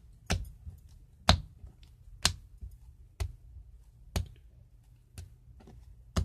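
A lump of homemade slime slapped down onto a wooden tabletop and picked up again, a sharp smack about once a second with softer pats between.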